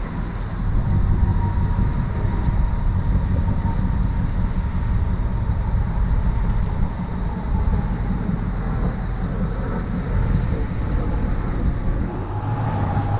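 A vehicle engine running steadily, heavy in the low end, with a thin steady whine above it.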